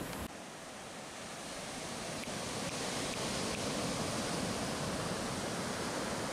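Ocean surf washing onto a sandy beach: a steady rush that grows a little louder over the first few seconds.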